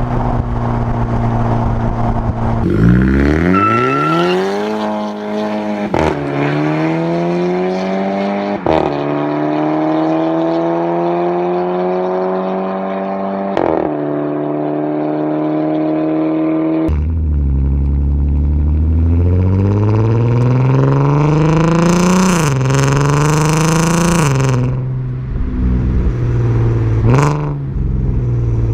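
Car with a DSG dual-clutch gearbox accelerating hard through the gears. The revs climb, then drop sharply at each upshift with a short crack from the exhaust (the DSG 'fart'), several times, with a second run of shifts starting about halfway through.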